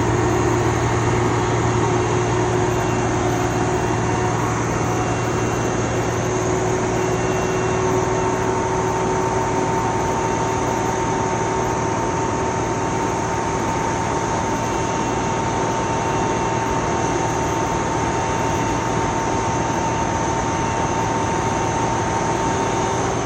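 Large crane's engine running steadily at constant speed, a low drone with a faint steady whine over it.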